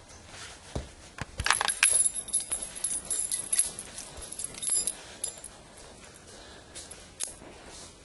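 A bunch of keys jingling in a hand in several bursts as they are pushed down between sofa cushions, with a few sharp knocks about a second in.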